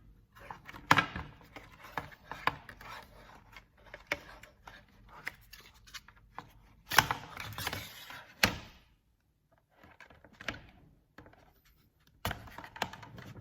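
Plastic keyboard case being pried apart with a pry tool: irregular clicking and scraping, with louder snaps about a second in, around seven and eight and a half seconds, and near the end.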